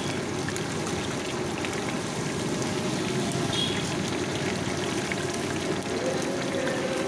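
Masala-coated chicken pieces deep-frying in a kadai of hot oil: a steady sizzle with scattered crackles.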